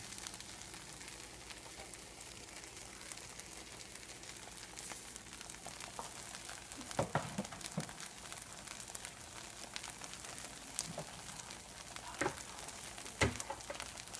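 Food frying in a pan with a steady sizzle, with a few knocks from around the middle to near the end.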